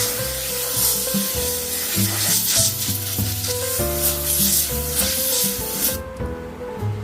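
Pressure washer spraying a wheel rim, a steady hiss of the water jet that stops about six seconds in, over background music.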